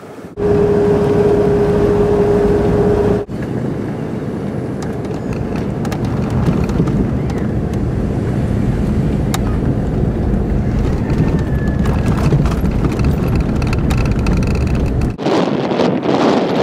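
Car driving along a rough dirt road, heard from inside the cabin: a steady, loud low rumble of engine and tyres that cuts off about fifteen seconds in. Near the start a single steady tone is held for about three seconds, and near the end wind noise on the microphone takes over.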